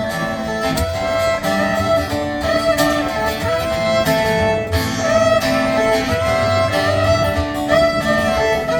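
Instrumental music: a fiddle holding long notes over strummed guitar chords and a low beat, the lead-in to a country-style song.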